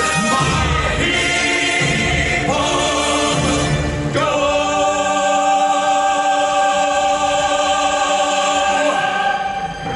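Dramatic choir and orchestra music: a driving beat for the first few seconds, then a long held choral chord from about four seconds in, giving way to darker music near the end.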